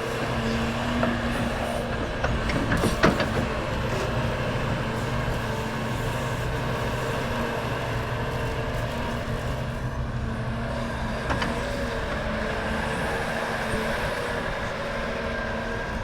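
Heavy diesel earthmoving machinery running steadily, with a low engine drone and a steady hum. A few sharp metallic clanks stand out: a cluster about three seconds in, the loudest point, and a single one about eleven seconds in.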